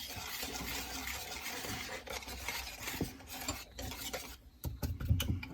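A whisk stirring a thin flour-and-buttermilk batter in a bowl, with a few light clinks against the bowl near the end.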